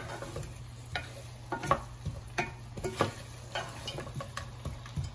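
Wooden spatula stirring cut okra frying in oil in a nonstick saucepan: irregular scrapes and knocks against the pan, roughly one every half second to second, over a faint sizzle. A steady low hum runs underneath.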